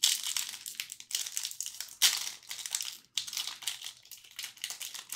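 Trading card pack wrapper crinkling in quick, irregular crackles as it is handled and opened, loudest at the start and again about two seconds in.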